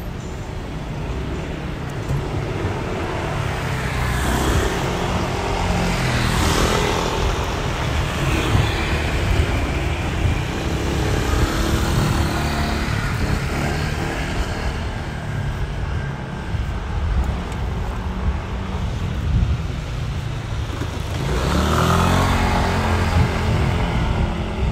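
City street traffic: a steady rumble of cars, with vehicles passing close by about four, six and twenty-two seconds in.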